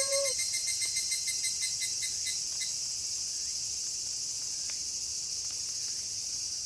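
Night insect chorus, crickets trilling in a steady high shimmer, with a faster pulsing chirp that fades out about two and a half seconds in. At the very start the tail of a wolf howl falls in pitch and stops.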